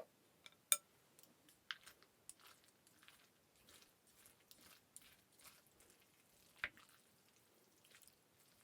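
Close-up eating sounds: quiet chewing with soft crunches and wet mouth sounds, broken by a few sharp clicks, the loudest under a second in and another about two-thirds of the way through.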